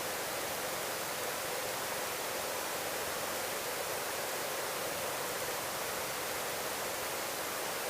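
Steady, even hiss of the helicopter's intercom and radio audio feed, with no rotor beat coming through.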